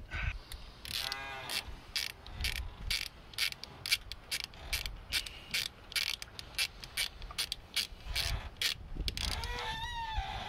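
Hand socket ratchet on an extension being worked back and forth to snug down small 10 mm bolts, its pawl clicking about three times a second. A short wavering tone sounds about a second in and again near the end.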